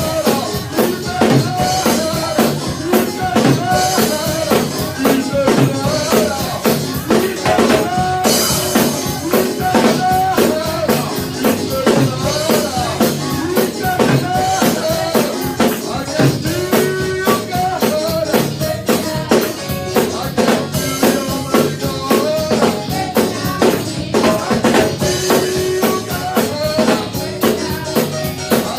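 Live church worship music: a band with drum kit keeping a steady beat under keyboard or guitar chords, with some voices singing faintly.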